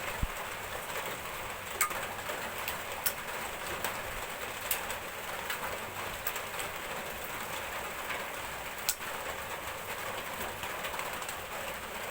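Steady rain falling, an even hiss throughout, with a few sharp clicks now and then.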